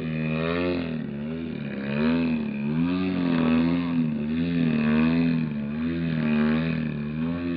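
100cc two-stroke petrol engine of a large radio-controlled Extra 300 aerobatic model plane running in flight. Its pitch rises and falls about once a second as the plane manoeuvres.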